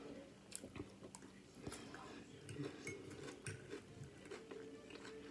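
Faint, scattered clicks and scrapes of cutlery against a dish while eating, over a faint steady hum.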